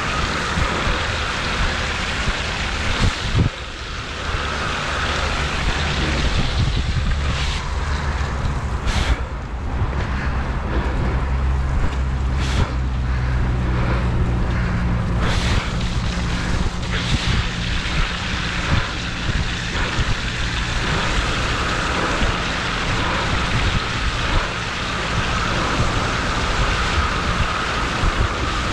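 Steady wind noise on the microphone and tyre noise from a recumbent trike riding a wet path, with a few brief louder rushes in the first half. Near the end the trike rides into floodwater and water splashes up.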